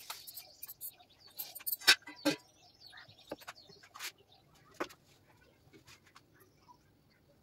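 A few sharp knocks and clatter of kitchen utensils being set down and picked up on the counter, the loudest about two seconds in. Faint high chirping runs through the first three seconds.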